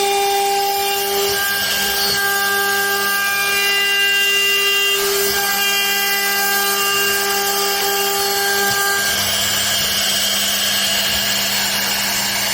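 CNC router spindle running steadily while cutting, a whine of several steady tones over a hiss of cutting noise, the upper tones changing a few times.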